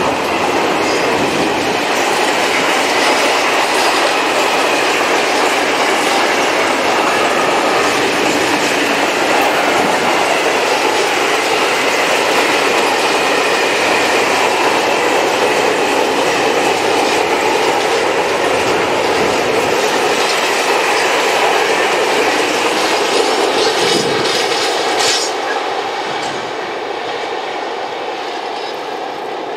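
Freight train of open coal wagons rolling past: steel wheels rumbling and clattering on the rails, with a thin squeal of wheel on rail. The noise thins and falls away about 25 seconds in as the end of the train draws off.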